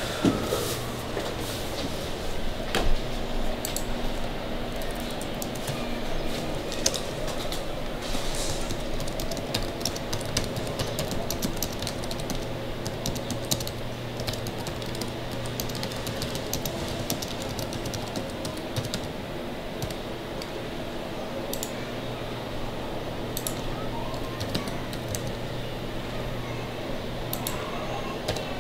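Typing on a laptop keyboard: irregular runs of key clicks over a steady low hum.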